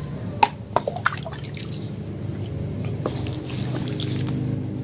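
Liquid poured from a plastic dipper onto the potting mix in a grow bag, trickling and dripping into the soil, with a few sharp knocks between about half a second and a second in.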